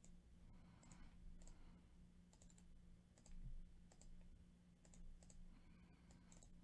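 Faint, irregular clicks of a computer mouse and keyboard, about ten in all, over a low steady hum.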